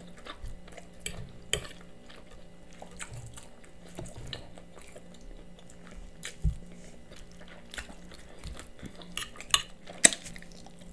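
Metal fork clinking and scraping against a plate of food, in scattered light clicks, with a couple of sharper clinks near the end.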